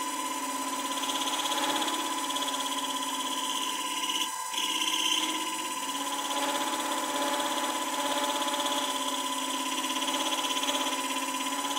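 DIY micro lathe made from a CNC rotational axis spinning a brass rod, its drive giving a steady whine, while a cutter tool cuts the brass. There is a short dip in the sound about four seconds in.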